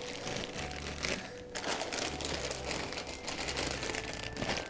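Plastic packaging crinkling and rustling as cables and accessories are handled.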